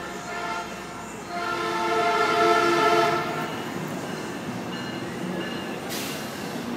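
Metrolink diesel locomotive's air horn: one blast ends within the first second, then a second, longer and louder blast sounds from about a second and a half in until about three and a half seconds. After it comes the steady rumble of the arriving train.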